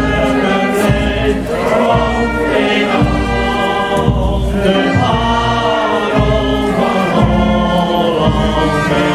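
A men's choir singing a song together, steady and continuous, with a low rumble coming and going underneath.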